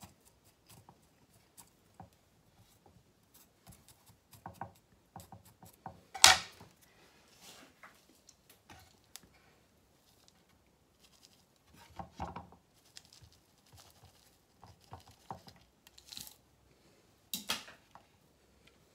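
Scattered gritty scratching and small clicks of a wooden chopstick and a small scoop working granular bonsai substrate down into a glazed ceramic pot. This is the settling of freshly repotted soil to work out air pockets. A few louder knocks or scrapes come through, the loudest about six seconds in.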